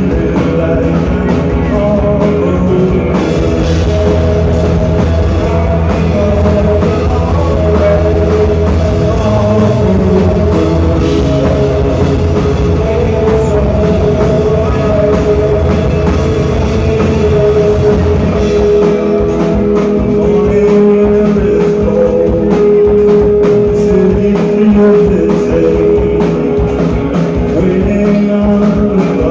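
Live rock band playing loud over a venue PA: electric guitars, bass guitar and drum kit, with sung lead vocals. About two-thirds of the way through the bass thins out under a held note.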